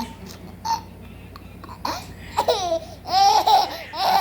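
Baby laughing, with high-pitched squealing laughs from about three seconds in after a quieter stretch with a couple of short sounds.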